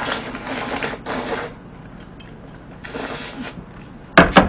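Glass noodles in spicy tteokbokki broth slurped from a bowl in three long noisy sucks, followed near the end by two sharp knocks.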